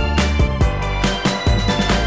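Background music with a steady beat of about four strokes a second over a bass line.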